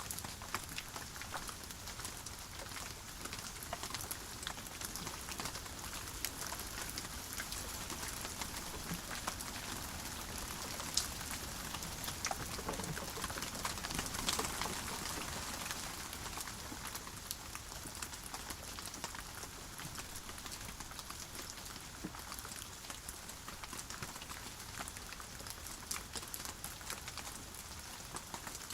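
Steady rainfall, with individual drops heard as sharp ticks over an even hiss. It grows a little louder about halfway through.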